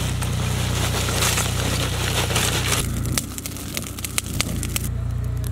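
Lumps of charcoal poured from a sack onto a fire: a dense, rattling crunch for about three seconds, then scattered clinks and knocks as the pieces settle and are raked with a shovel. A steady low hum runs underneath.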